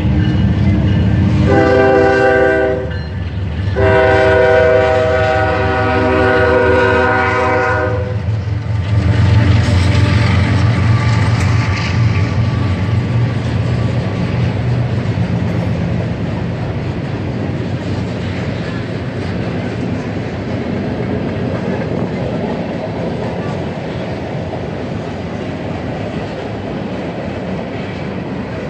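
Norfolk Southern freight train's diesel locomotive sounding its air horn, a short blast and then a long one. The locomotives' engines then rumble past, followed by the steady rolling and clatter of freight cars on the rails.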